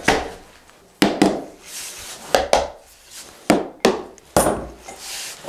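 Wooden knocks on a wooden workbench: about eight sharp taps and clunks, several in quick pairs, with a short scraping sound near the end.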